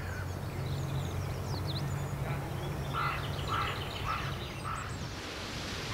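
Outdoor park ambience: small birds chirp faintly over a low steady hum. About three seconds in, a bird gives four short calls, each about half a second apart.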